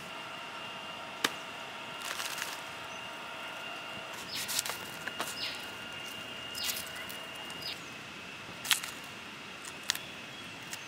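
Hands working a ripe jackfruit with a large knife, cutting into the rind and tearing the bulbs from the stringy pulp: a few sharp cracks and short rustling, tearing sounds, over a faint steady high tone in the background.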